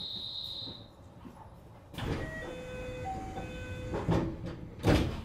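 227 series electric train's sliding passenger doors closing: a brief high beep, short chime notes, then the doors shutting with two thuds near the end, the second the loudest.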